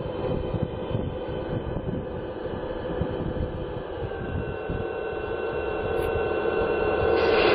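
O scale model train locomotive running with a steady engine-like drone, with higher steady tones joining and the sound growing louder toward the end.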